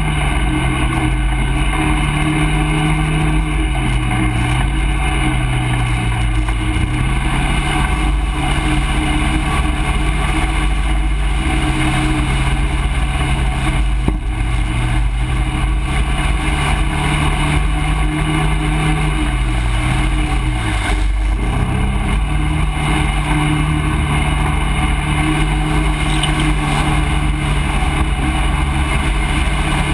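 ATV engine running steadily as the quad rides a muddy trail, its pitch easing down and picking up again several times as the throttle is let off and opened, with a longer dip about twenty seconds in before it climbs back.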